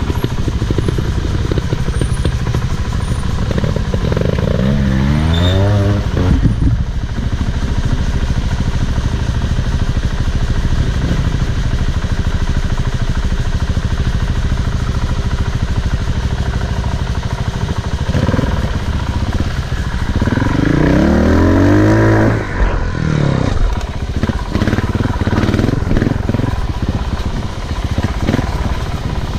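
Off-road motorcycle riding, with a steady rumble of running noise; twice the motor's pitch climbs as it speeds up, once about four seconds in and again about twenty seconds in.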